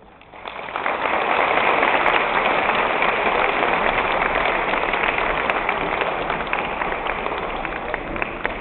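Audience applauding: the clapping swells in about the first second, holds steady, and slowly tapers off near the end.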